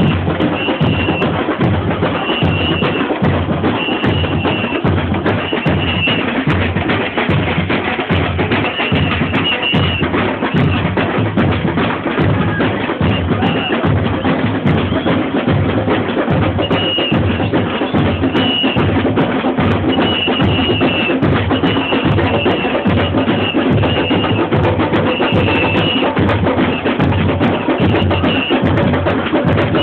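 A samba bateria, a carnival street percussion band, playing full out: surdo bass drums and snares keep a steady driving rhythm, with short high notes recurring over the drumming.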